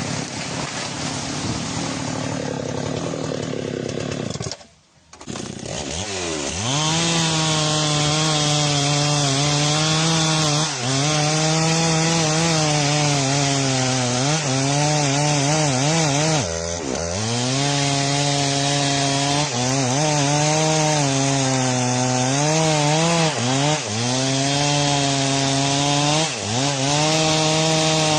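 Two-stroke chainsaw running at high revs and cutting through wood. Its pitch sags as the chain bites and climbs back again, over and over. The sound breaks off briefly about five seconds in.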